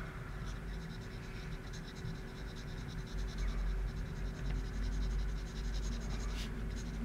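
Pencil scratching on paper in quick, short, repeated strokes while shading a sketch, over a low steady hum.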